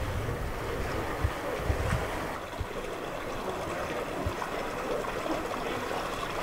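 Floodwater sloshing and lapping in a flooded street as people wade through it, with a few light knocks.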